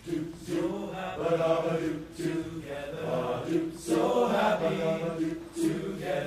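Men's choir singing in harmony, coming in all at once after a hush. The low voices hold steady notes beneath moving upper parts.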